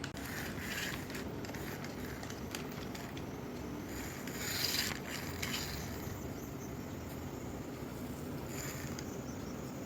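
Small remote-control toy car running across the floor: its electric motor and wheels make a steady mechanical whirr and rub, a little louder about four to five seconds in.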